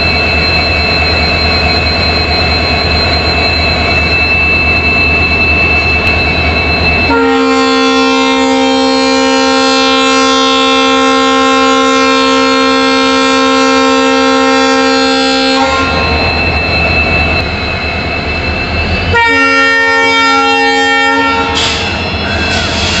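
Twin EMD WDP4 diesel locomotives running at a standstill, a deep engine rumble with a high steady whine over it. About seven seconds in, a long air-horn blast of about eight seconds. After a stretch of engine sound, a second, shorter blast of about two seconds.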